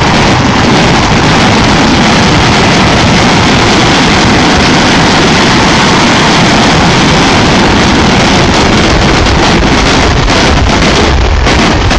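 A dense barrage of fireworks, the bangs following so fast that they merge into one very loud, unbroken din.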